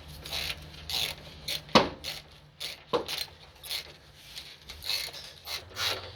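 Jack being pumped in repeated short strokes, about two a second, raising the DEF tank into place, with two sharper metallic clicks a couple of seconds in.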